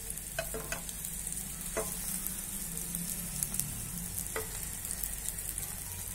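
Round bread slices deep-frying in ghee in a kadhai, a steady sizzle as they fry toward reddish-brown. A few light clicks come as a slotted spoon turns them against the pan.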